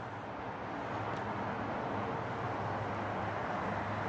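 Steady rain falling outdoors, an even hiss of noise, with a low steady rumble underneath.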